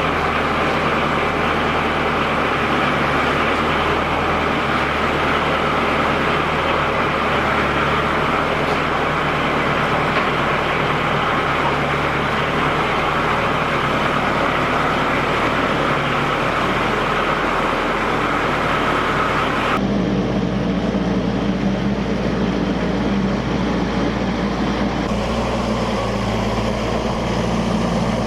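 Compact diesel tractor engine running steadily. About twenty seconds in the sound changes abruptly to a deeper engine note with less hiss.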